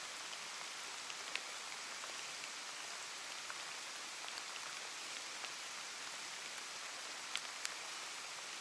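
Light rain falling on water, a steady patter with scattered drop ticks, a few louder ones about a second in and twice near the end.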